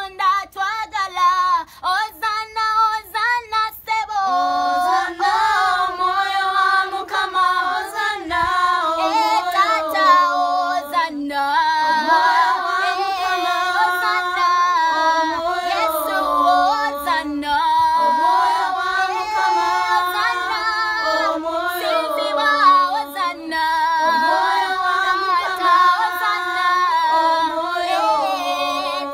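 Children's choir singing a worship song, a girl's voice carrying the tune.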